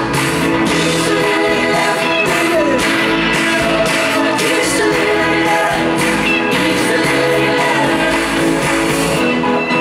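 Live pop-rock band playing a song through a large PA, with electric guitar, a steady drum beat and a sung vocal line. Near the end the cymbals drop out.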